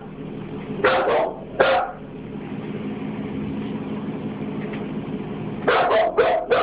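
A small dog barking in short sharp barks, twice about a second in and three times in quick succession near the end, over a low steady hum.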